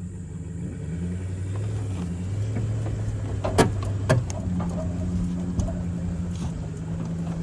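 A vehicle engine running with a steady low hum that shifts slightly in pitch. About halfway through there are two sharp knocks, half a second apart.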